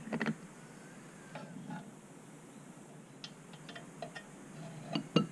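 Scattered light clicks and taps of small tools and parts being handled on a workbench while a wire is tinned for soldering, with a short cluster of clicks near the start and a couple of sharper clicks near the end.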